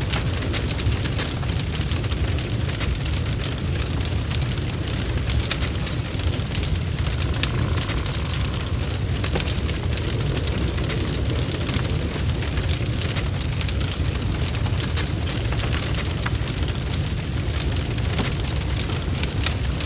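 Bonfire crackling: a steady low rumble of the flames with many small, irregular sharp pops and snaps of burning wood.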